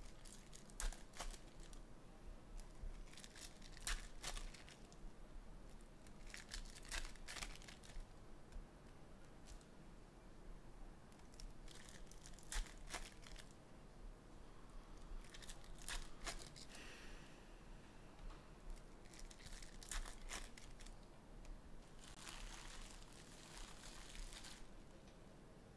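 Foil wrappers of 2022 Upper Deck Goodwin Champions trading-card packs crinkling and tearing as they are opened by hand, in short crackly bursts every few seconds.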